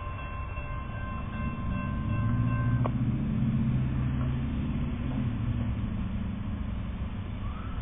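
Railroad crossing warning bell ringing steadily, cutting off suddenly about three seconds in as the gates settle down. Under it, the low rumble of the approaching Amtrak train's diesel locomotive builds and then eases.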